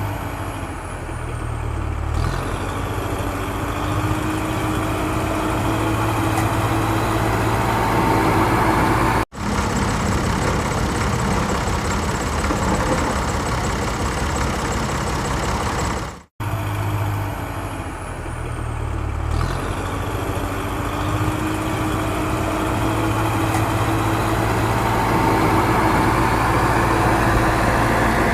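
Engine running steadily, like a tractor engine, with two abrupt cut-outs about nine and sixteen seconds in, where the sound drops out for an instant and restarts.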